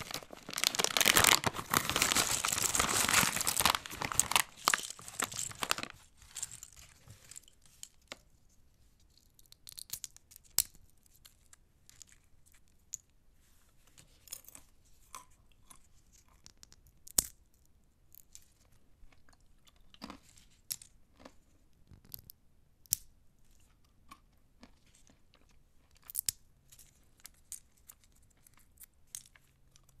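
Pistachios being cracked open and eaten: a dense crackling rustle of shells for about the first six seconds, then scattered sharp cracks of single shells being split, with crunching.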